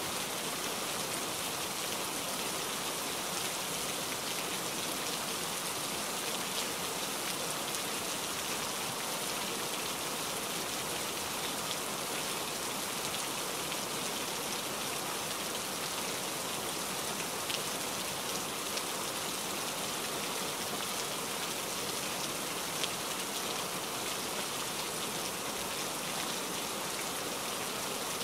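Steady, even hiss of rain-like noise with a few faint ticks.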